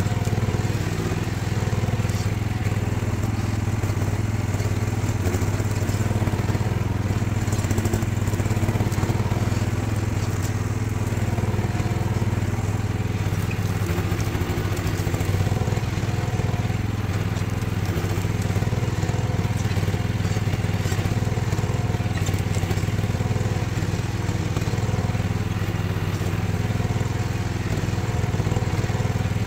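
Diggit EM15 mini excavator's engine running steadily, with scattered cracks and clatter over it.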